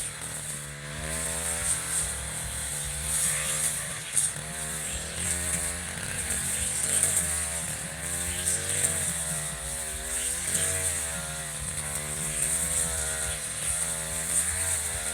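Echo RM435 two-stroke brush cutter engine running, its pitch wavering up and down repeatedly, with a high whine on top.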